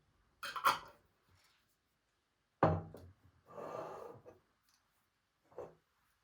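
Objects being handled on a hard surface: a light clattery knock, then a heavier thud followed by a short scraping rub, and a small knock near the end.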